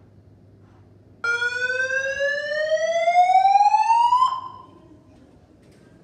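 Ceiling-mounted fire alarm speaker sounding one slow whoop evacuation tone. The tone rises steadily in pitch for about three seconds and cuts off sharply about four seconds in.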